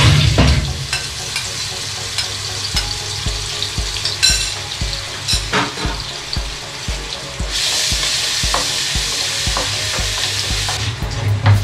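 Ingredients frying in hot oil in a pan: a loud sizzle as the contents of a bowl are poured in at the start, then a steady sizzle with a spatula stirring and lightly knocking against the pan. The sizzle swells louder for a few seconds near the end.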